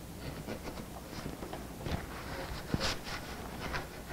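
Wooden boards being handled and fitted together on a workbench covered with kraft paper: light taps, scrapes and paper rustles, with a few sharper wooden knocks about two and three seconds in.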